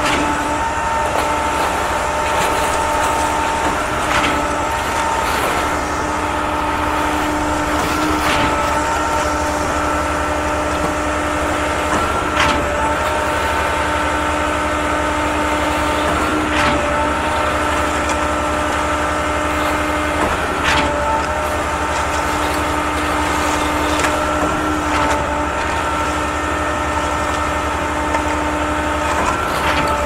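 Concrete pump truck running steadily, with a knock about every four seconds as it strokes concrete through the hose.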